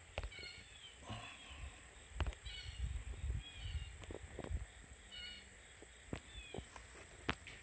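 Outdoor summer ambience: a bird calling in short, repeated slurred notes every second or two over a steady high insect drone, with a few sharp clicks.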